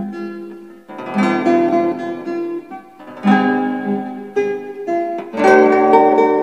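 Nylon-string classical guitar in drop-D tuning played fingerstyle: a slow melody over plucked chords. New phrases start about a second in, about three seconds in and near the end, and the notes ring out and fade between them.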